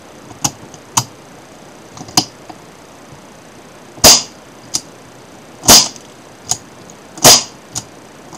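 ASG Dan Wesson CO2 BB revolver worked with an empty shell in the cylinder. A few light clicks come first. Then, in the second half, there are three loud sharp snaps about a second and a half apart, each followed by a lighter click.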